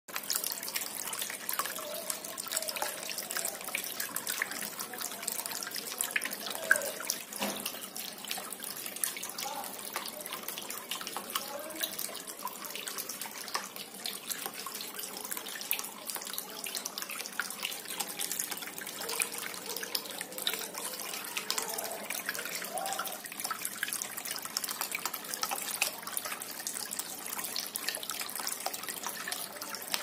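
Small cement tabletop waterfall fountain running: water trickles down its stepped tiers and splashes into a pebble-lined basin. The flow is steady, with many small drips and splashes.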